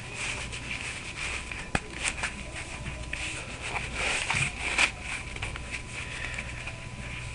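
Handling noise as the suppressor parts, an armband sleeve and a tube cut from an old trophy, are slipped together: rustling with a few light clicks and knocks, over a steady low hum.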